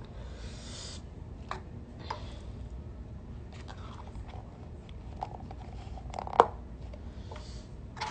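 A person eating seafood close to the phone's microphone: chewing and crunching, with scattered sharp clicks and one loud sharp crack a little after six seconds.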